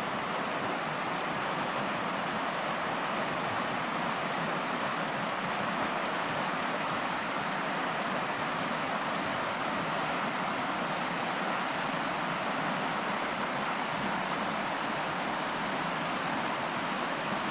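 Steady rushing of the Hoh River, a glacier-fed river, with an even, unbroken flow of water noise.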